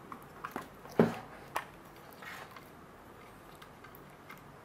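A few light clicks and knocks from smart door lock parts being handled and set down, the loudest about a second in, followed by a faint scrape.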